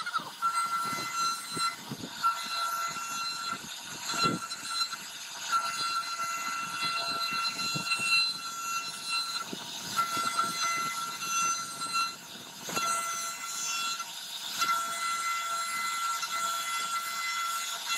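CNC router spindle carving a relief into a wooden board. It gives a steady high whine that breaks off briefly several times, with scattered short clicks.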